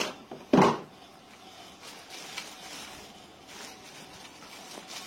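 Handling of the keyboard and mouse packaging: one sharp knock or crackle about half a second in, then faint rustling and small ticks.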